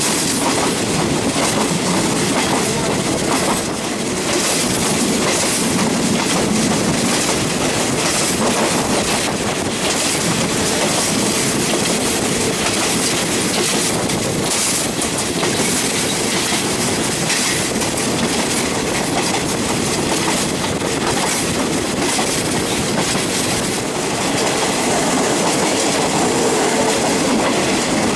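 Express passenger train of the State Railway of Thailand running along the line, heard from an open carriage window: a steady rumble of wheels on rail with a continual clatter over the rail joints.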